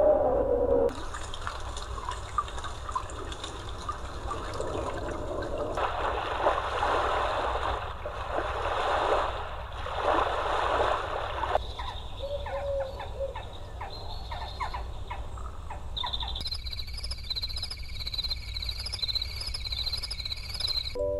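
Nature-sound tracks played by a sleep sound machine: trickling, rushing water with swells for about the first half. This gives way to short clicking calls, and then about three-quarters of the way in, to a fast, high, even chirping.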